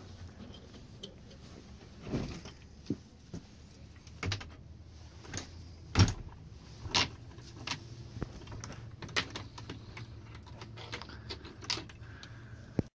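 Knocks and metallic rattles from a ribbed metal-clad chicken coop door and its latch being pushed and handled. There are several scattered sharp knocks, the loudest about six seconds in, and a last click just before the sound cuts off.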